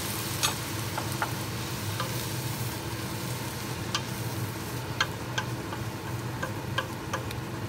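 Onions sizzling in a stainless steel pot with sherry vinegar, maple syrup and coffee in with them, stirred with a wooden spoon. The spoon knocks and scrapes against the pot in irregular clicks over the steady sizzle.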